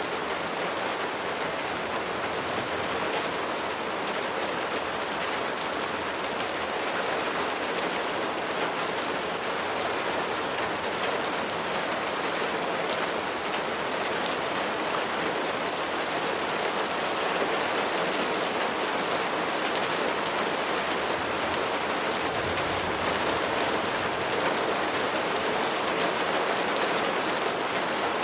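Steady rain falling: an even hiss with many scattered sharp ticks of individual drops striking a surface.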